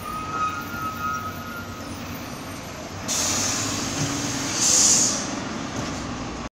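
Bus's pneumatic folding front door opening: a hiss of compressed air starts about three seconds in and swells loudest as the door folds open, over the bus's idling engine. A short steady tone sounds near the start.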